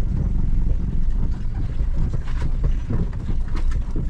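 Low rumble inside a car driving slowly over a rough, rutted dirt road, with a few sharp knocks and rattles from the car about halfway through and near the end.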